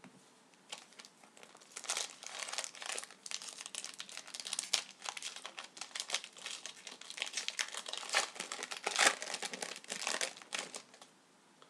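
Plastic wrapper of a hockey card pack being crinkled and torn open by hand, an irregular run of crackling and rustling that stops shortly before the end.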